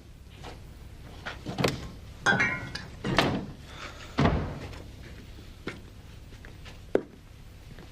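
A run of knocks and thuds, like a door and things being handled, over the first few seconds, then a single sharp click near the end.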